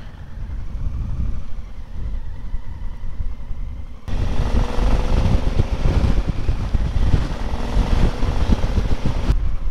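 Honda Africa Twin motorcycle running under way, with wind rushing over the microphone. About four seconds in, the sound jumps louder and the engine note climbs a little, then the rush eases near the end.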